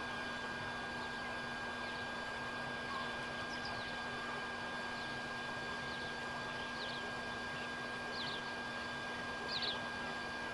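Waterfowl chicks giving short, high peeps that drop in pitch, scattered every second or two and more frequent in the second half. Under them is a steady background hiss with a constant thin whine.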